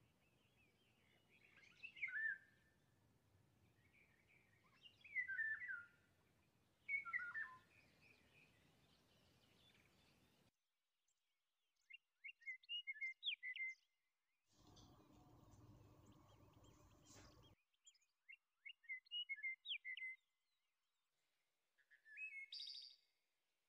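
Small birds chirping and singing in short, falling phrases every couple of seconds, with a low hum for about three seconds past the middle.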